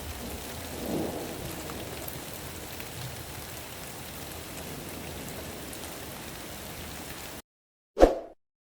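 Steady heavy rain with a brief rumble of thunder about a second in. The rain cuts off abruptly near the end, followed by a single short ringing ding.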